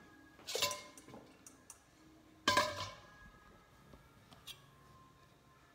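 Kitchenware clinking twice, about half a second in and again about two and a half seconds in, each knock ringing briefly, with a few lighter ticks in between.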